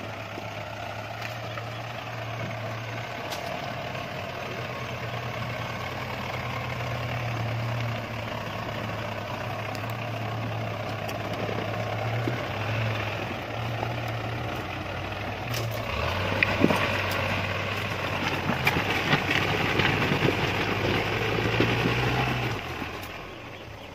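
Off-road 4x4's engine running at low speed with a steady hum as it crawls over rough ground. From about two-thirds of the way through it works harder, with crunching and scraping of tyres on loose rocks as it climbs a rocky bank, then fades off near the end.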